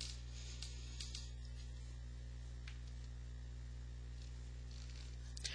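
Steady low electrical hum with faint hiss, with a few faint short clicks in the first three seconds.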